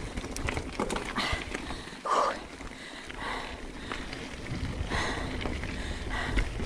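Mountain bike rolling along a forest singletrack: uneven rumble of tyres on the trail and wind on the camera's microphone, with scattered short knocks and rattles and a brief louder sound about two seconds in.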